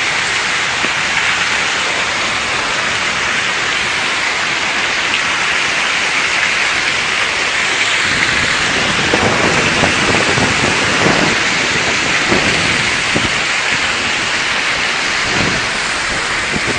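Heavy rain pouring down steadily in a windstorm. From about halfway through, gusts of wind buffet the microphone with an uneven low rumble.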